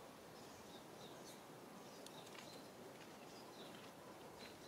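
Near silence: faint outdoor ambience with scattered short, high chirps of small birds.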